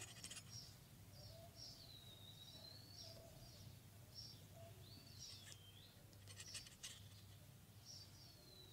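Faint birds calling: short high chirps repeating throughout, with a few slurred whistles that dip in pitch, over a low steady hum. A brief burst of clicks comes about six and a half seconds in.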